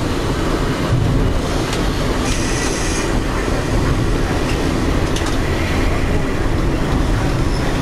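1905 BC Electric electric interurban car running along the track: a steady rolling rumble of wheels and running gear, with a brief high squeal about two seconds in and a few sharp clicks.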